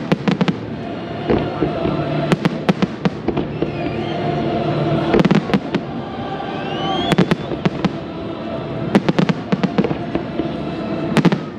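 Aerial fireworks shells bursting in the sky, sharp bangs coming in quick clusters every one to two seconds.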